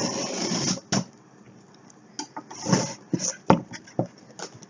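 A taped cardboard box being opened: a short tearing rasp of packing tape, a sharp snap about a second in, then scattered crinkles and knocks of cardboard flaps and packing.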